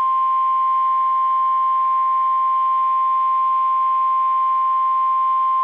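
NOAA Weather Radio 1050 Hz warning alarm tone: one loud, steady single-pitch tone, the signal that a warning broadcast is about to follow.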